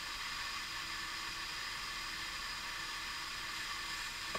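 Steady hiss of recording noise with a faint low hum underneath. There are no distinct events apart from a small click at the very end.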